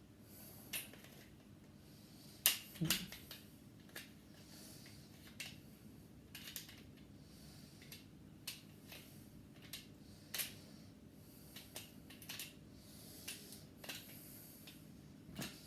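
Scattered small clicks and scrapes of lightsaber hilt parts being handled and turned to screw the bottom of the hilt into place, with the loudest pair of clicks about two and a half seconds in.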